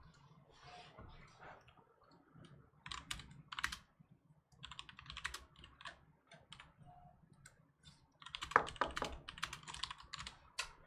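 Runs of rapid light clicking and tapping, coming in short spells. The densest and loudest spell comes about eight seconds in.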